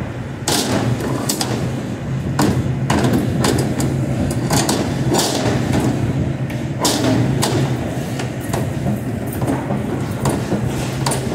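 Commercial kitchen work clatter: irregular knocks and clanks of pans, lids and utensils, over the steady hum of the exhaust hood fan.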